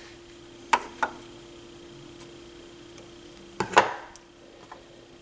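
Small metal parts and hand tools clinking against the turntable mechanism during reassembly: two sharp clinks about a second in, then a louder cluster of clinks near the end, over a faint steady hum.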